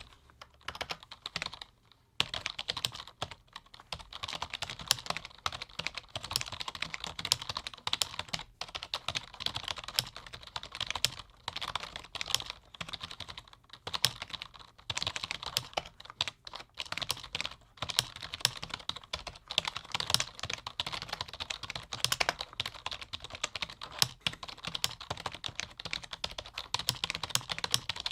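Continuous fast typing on a low-noise computer keyboard: a dense patter of soft key clicks with brief pauses here and there.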